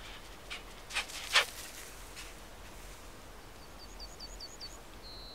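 Outdoor ambience with a few short, sharp sounds about a second in, the last of them the loudest. Near the end a small bird gives a quick run of about six high chirps, followed by a held high whistle.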